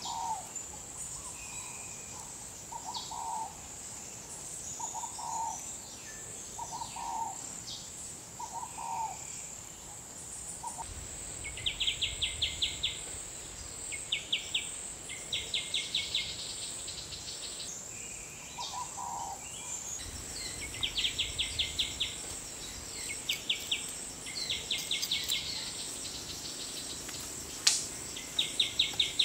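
Outdoor ambience of a steady high insect drone with birds calling: a low call repeated about every one to two seconds at first, and short higher notes. From about the middle on there are repeated bursts of rapid clicks, each about a second long.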